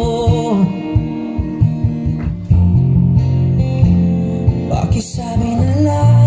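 Song with guitar, a singing voice and a heavy, sustained bass line.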